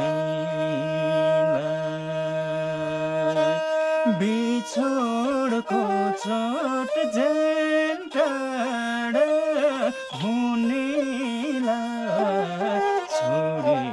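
Music: a held drone with steady notes for the first three and a half seconds, then a melodic line that slides and wavers between notes.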